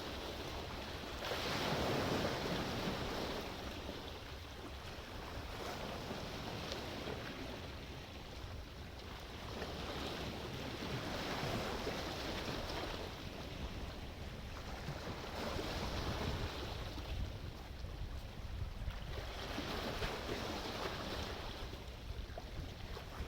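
Sea waves breaking and washing, surging about every three to four seconds over a steady low rumble of surf.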